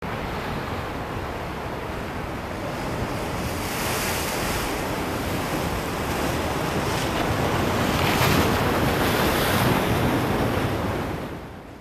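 Ocean waves and surf washing in a steady rush of noise that swells through the middle and fades out near the end.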